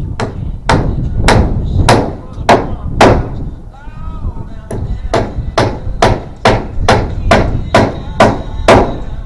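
Hammer driving nails into wood framing: six steady blows, a short pause, then about ten quicker blows at roughly two a second.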